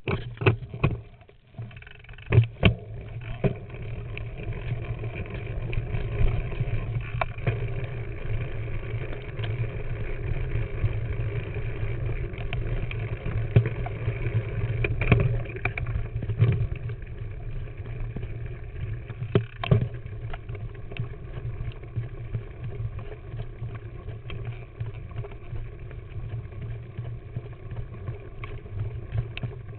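Mountain bike riding down a rough dirt singletrack, heard through a camera mounted on the bike: a steady rumble of tyre, wind and frame vibration, broken by sharp knocks and rattles as the bike hits bumps, the loudest about two to three seconds in.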